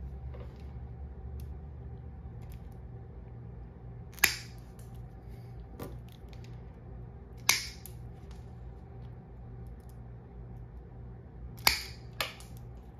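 Dog nail clippers snipping through a standard poodle's toenails: four sharp clips a few seconds apart, the last two in quick succession.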